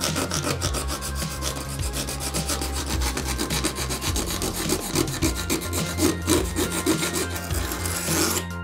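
A small hobby blade scraping along a 3D-printed plastic part in rapid, repeated short strokes, cleaning up a printed groove.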